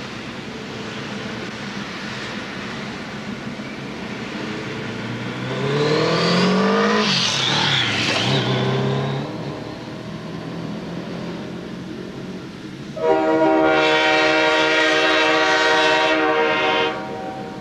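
Alco Century diesel locomotive running slowly with a steady engine rumble. A car passes close by about six to nine seconds in, its tone rising and then falling. About thirteen seconds in, the locomotive's air horn sounds one long chord of several notes for nearly four seconds, then stops.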